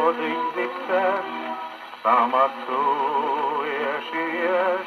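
A 1933 shellac 78 rpm dance record playing on a portable wind-up gramophone: a slow boston waltz with a wavering, vibrato melody line over the accompaniment, with record surface noise.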